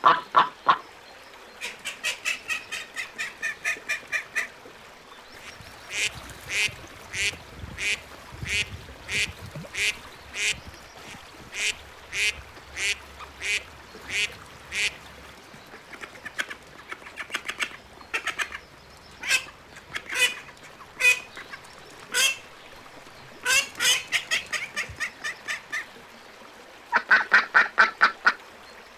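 Ducks quacking in runs of repeated calls: a quick series near the start, a slower, even series of about two quacks a second through the middle, and further quick series later on.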